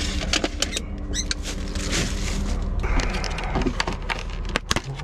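Rummaging in a small fridge: plastic bags rustling and a clear plastic egg tray clicking and crackling as it is handled, over a steady low hum.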